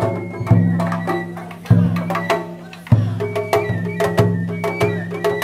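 Japanese festival music: drums and other percussion struck in a steady rhythm, about one stroke every half second, with a high wavering flute-like melody over them.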